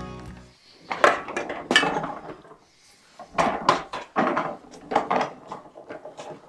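Irregular knocks and clunks of a heavy metal boat-drive part, a MerCruiser gimbal housing, being handled and shifted on a wooden stand.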